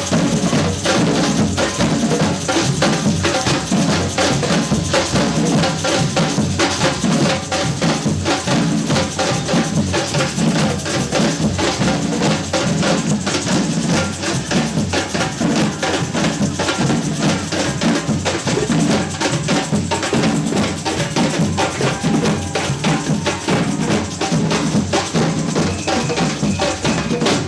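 Samba batucada percussion band playing a levada groove: many drums and small percussion beating a dense, driving rhythm.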